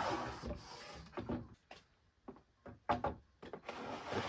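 Handling noise: scraping at the start and near the end, with several light knocks in between.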